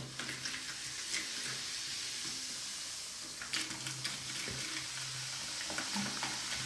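Coca-Cola fizzing: a steady crackling hiss of carbonation bubbles, with scattered small ticks.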